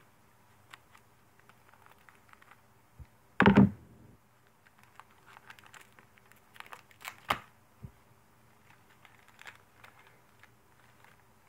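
Foil trading-card pack being worked open by hand: scattered crinkles, rustles and small clicks, with one louder short thump about three and a half seconds in.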